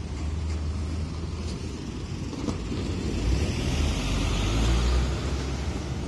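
City street traffic: a steady low rumble, with a car going by that swells to its loudest about four to five seconds in.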